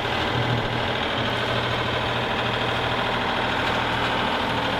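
A sailboat's inboard engine running steadily under way, a constant low hum with an even mechanical beat.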